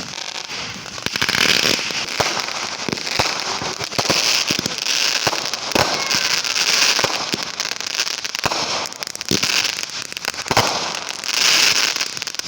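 Hand-lit fireworks crackling steadily, with many sharp pops and surges of crackle every second or so.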